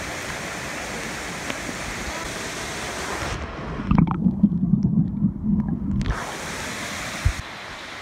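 Fast water of a waterfall cascade rushing close-up over rock. About three seconds in, the sound turns muffled and rumbling, with knocks, for a couple of seconds as the camera goes under the water, then the open rush returns. Near the end there is a knock, and the rush continues a little quieter.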